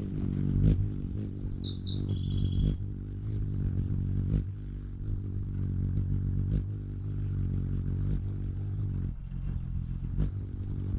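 A steady low hum, typical of a hummingbird's wings hovering close to the feeder, rising and falling in strength. About two seconds in, a hummingbird gives a brief high call: two short chips, then a squeal under a second long.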